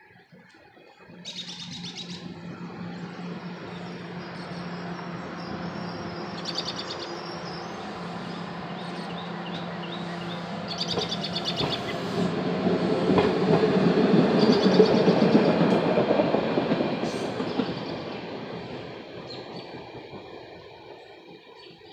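SEPTA Route 101 light-rail trolley passing over the grade crossing: motor hum and steel wheels on rail, building to its loudest about two-thirds of the way through and then fading away. A steady low hum runs through the first half, and there are several short high-pitched bursts along the way.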